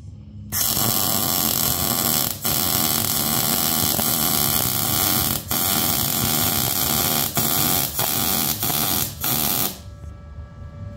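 Wire-feed (MIG) welder arc crackling steadily as a bead is run. It breaks off briefly a few times and stops just before the end, leaving a quieter steady hum.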